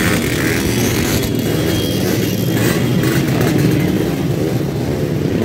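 Many motor scooters and small motorcycles running together as a dense convoy passes, a steady overlapping engine drone.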